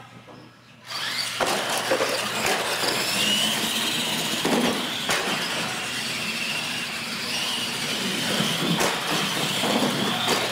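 Retro R/C monster trucks launching about a second in and racing: the high whine of their electric motors and gears over a steady rush of wheel and drivetrain noise, with a few sharp knocks.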